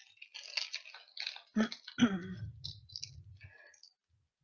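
Candy-bar wrapper crinkling and crackling as it is handled and opened. About one and a half and two seconds in come two louder knocks, followed by a brief low rumble.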